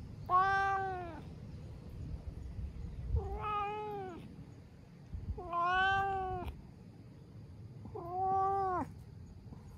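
Orange tabby cat meowing four times while being stroked. Each meow lasts about a second and its pitch drops away at the end.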